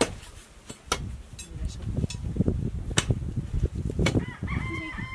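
Hand tools (a steel digging bar and a shovel) striking and chipping frozen ground: sharp knocks every second or so over scraping dirt. A drawn-out call rings out near the end.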